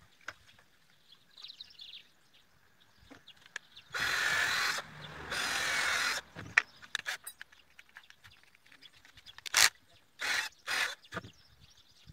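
Cordless drill run in short trigger bursts into wood: two longer runs of about a second each, then three shorter ones near the end.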